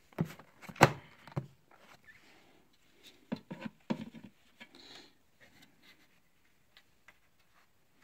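Hand-fitted HEPA filter and the plastic housing of an Electrolux SuperCyclone vacuum cleaner: sharp plastic clicks and knocks as the filter is pressed into its seat, the loudest about a second in, a few more around three and a half to four seconds, with light rubbing of hands on the plastic between.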